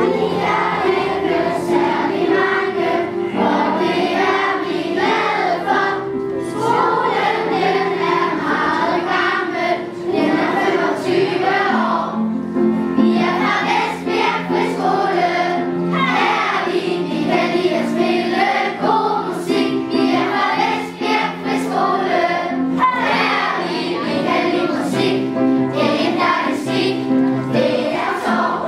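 A choir of schoolchildren singing a song together.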